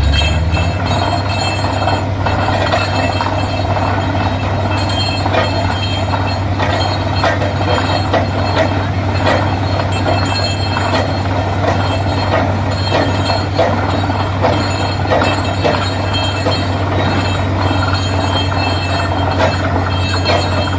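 Borewell drilling rig running: a steady, loud engine and compressor drone with frequent short metallic clinks and knocks from the drilling.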